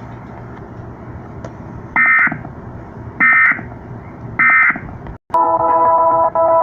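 Emergency Alert System end-of-message data bursts: three short, buzzy digital tone bursts about a second apart, heard over FM radio, marking the end of the alert. After a brief cutout, music comes back on about five seconds in.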